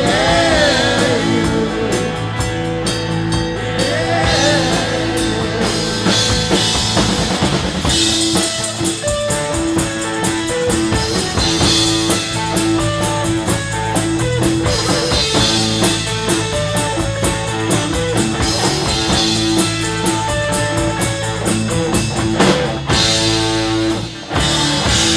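Rock band playing an instrumental passage after the final chorus: drum kit keeping a steady beat under electric guitar and bass.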